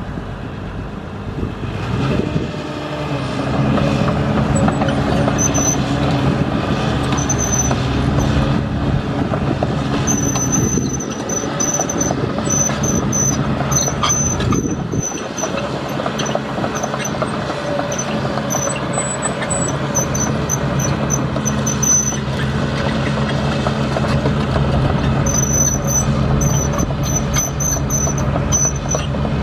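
Heavy construction machinery running: a steady diesel engine hum. Bursts of short, high-pitched squeaks come in and out over it, from about ten seconds in and again near the end.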